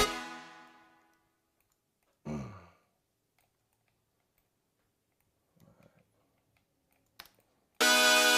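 A dubstep loop playing back in a music production session stops, its echo dying away within about a second, and starts again loud near the end. In the gap there is near silence with a brief sound falling in pitch a couple of seconds in and a single click shortly before the music returns.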